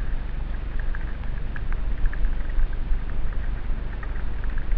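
Wind rumbling on a helmet-mounted camera's microphone while a mountain bike speeds down a wet dirt trail, tyres hissing over the mud, with many small rattling ticks from the bike over the bumps.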